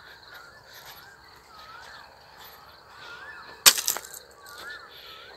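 Outdoor evening ambience with a bird calling: short whistled notes that rise and fall in pitch, repeated every second or so. A single sharp knock about three and a half seconds in is the loudest sound.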